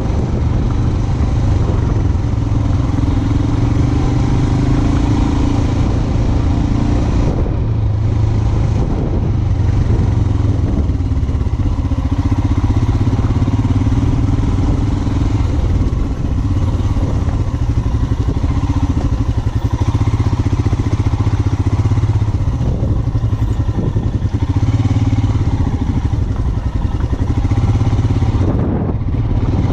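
Motorcycle engine running continuously under load while off-road riding, the throttle easing off briefly about seven seconds in and again near the end.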